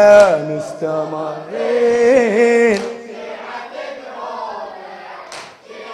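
A male reciter's unaccompanied Shia latmiya (mourning chant) sung over a microphone. A held line trails off at the start, a second sung phrase comes about one and a half seconds in, and from about three seconds the sound drops much quieter.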